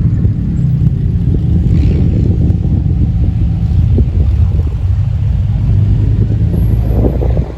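Mitsubishi Pajero three-door's engine running steadily with a low rumble, dropping in level shortly before the end.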